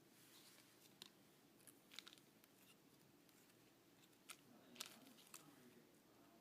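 Near silence with a few faint, scattered clicks and rustles of small objects being handled: about a second in, around two seconds, and a cluster between four and five and a half seconds.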